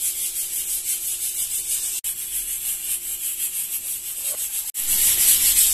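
Steady hiss with a faint low hum, broken by two brief silences, about two seconds and nearly five seconds in; the hiss is louder after the second silence.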